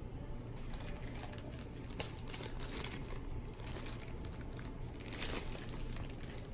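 Clear zip-lock plastic bag crinkling irregularly as it is picked up, handled and set back down, with the loudest crackles about two to three seconds in and again about five seconds in.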